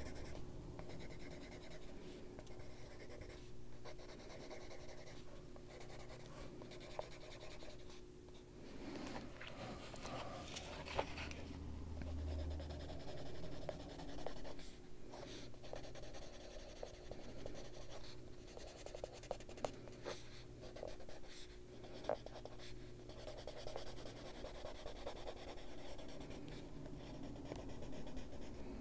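Colored pencil scratching across paper in short repeated strokes as a brown pencil shades in an area, with a few light ticks of the pencil tip.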